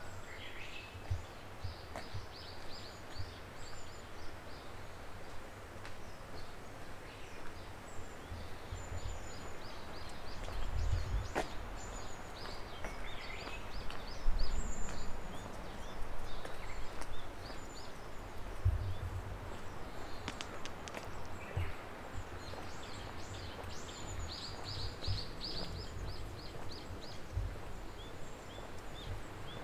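Small birds chirping and calling repeatedly, with short trills near the end, over a steady outdoor background hiss and occasional low thuds.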